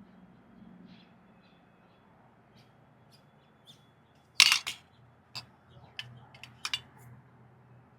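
A handful of sharp clicks and clacks over a faint steady hum: a loud quick clatter about four and a half seconds in, then three single clicks spaced about half a second apart.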